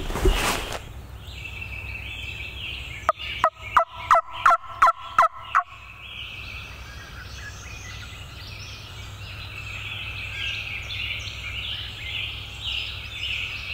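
A run of about eight turkey yelps, about three a second, lasting a couple of seconds, followed by a steady high-pitched chorus of background birdsong.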